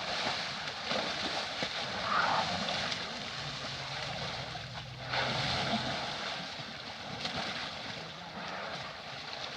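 Water splashing and rushing as a young elephant bathes and plays in the water, steady with louder surges about two and five seconds in.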